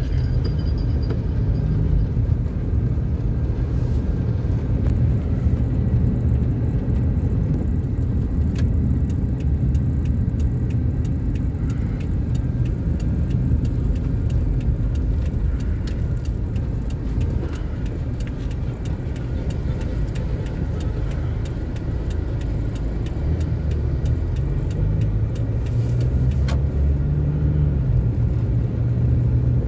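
Car driving, heard from inside the cabin: a steady low rumble of engine and road noise, with many faint rattling clicks through the middle.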